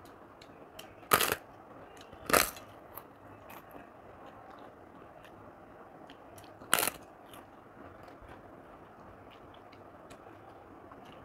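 Crisp papad (papadum) crunching loudly three times, about a second in, about two and a half seconds in and near seven seconds in, as it is broken and bitten, with faint chewing clicks in between.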